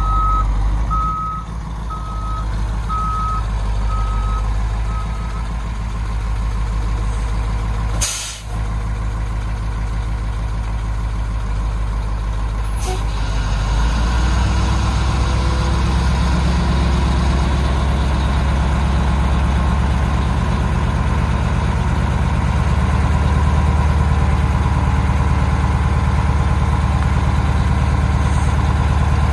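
1986 International S1700 dump truck's 9.0-litre six-cylinder diesel running, with its reversing alarm beeping steadily for the first five seconds or so. About eight seconds in there is a short, sharp hiss of the air brakes. From about fourteen seconds on the engine runs louder and steadily.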